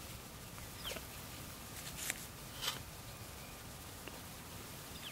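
Chickens preening, their bills working through their feathers: a few brief, sharp rustles and clicks, about four in five seconds, over a steady low hiss.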